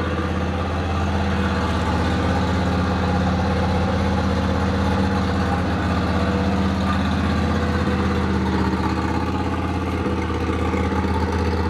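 V-twin engine of a John Deere L130 racing-mower conversion idling steadily through its stainless steel exhaust.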